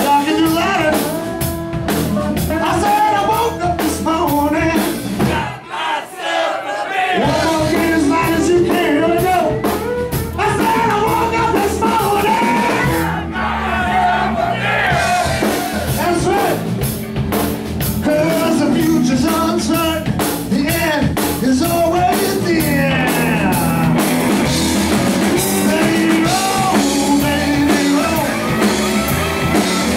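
Live blues-rock band playing: electric guitars, drum kit and a singing voice. The low end drops out briefly about six seconds in before the full band comes back.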